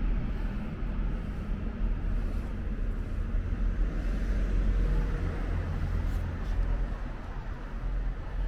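Steady low rumble of outdoor city-street ambience, with no distinct events standing out.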